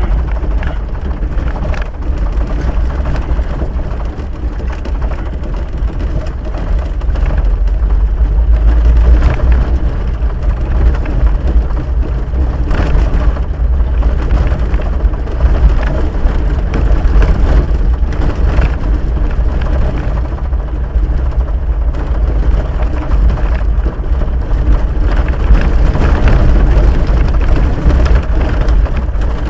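Jeep Wrangler YJ driving over a rough gravel dirt road, heard from inside the cab: a steady low rumble of engine and tyres with frequent short knocks and crunches from the rough surface.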